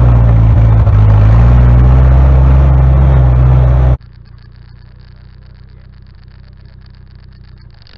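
1956 Jeep CJ5's Hurricane four-cylinder engine running steadily and loud under way. About halfway through it drops suddenly to a much fainter engine sound with a fast, even putter.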